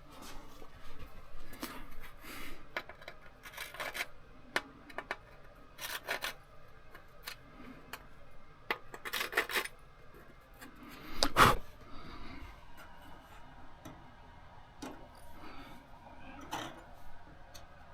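Hand work on aluminium aircraft wing parts: scattered light clicks, taps and rubbing scrapes of metal being handled and fitted, with one louder knock about eleven seconds in.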